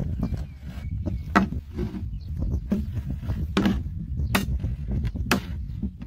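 A thin knife blade pierces and cuts a clear plastic bottle, giving sharp crackles and snaps of the plastic, four of them loud, over a steady low rumble.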